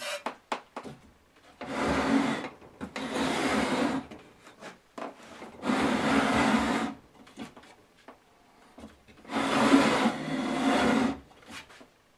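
Wooden engine mount with a small engine on it, dragged and turned on a workbench: wood scraping across the bench top in four strokes of about a second each, with a few light knocks near the start.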